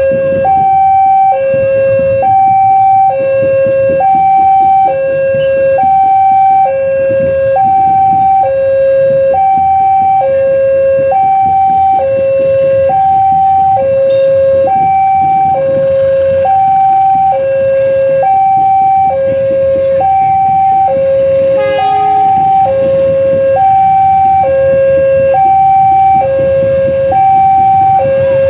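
Railway level-crossing warning alarm sounding: two electronic tones alternating low and high, each held about a second, the signal that a train is approaching or passing. A steady low rumble runs underneath, with one brief sharp sound about three-quarters of the way through.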